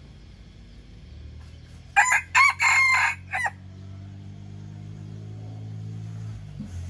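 A young red junglefowl cockerel crowing once, about two seconds in: a short, broken crow of about a second and a half, the kind a young bird makes while still learning to crow. A low steady hum lies underneath.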